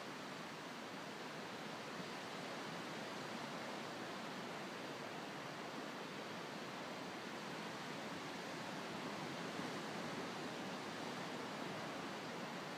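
Surf breaking on a sandy beach: a steady, even wash of noise with no distinct individual waves.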